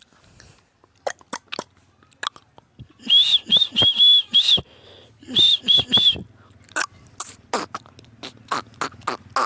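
Pet parrot clicking, then whistling a quick run of five short, high notes about three seconds in and three more a second later, followed by more clicks and brief chirps.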